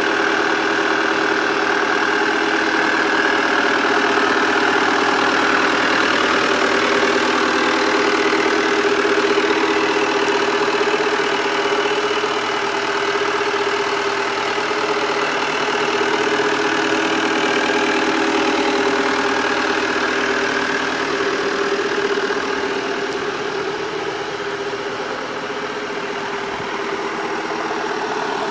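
Homemade 4x4 tractor's engine idling steadily.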